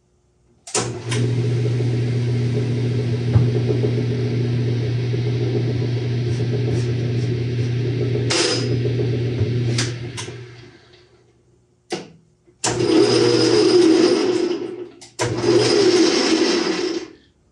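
Shenwai bench lathe switched on with a click, its motor and spindle running steadily for about nine seconds, then winding down. It is then started twice more for runs of about two seconds each, with a stronger, higher whine.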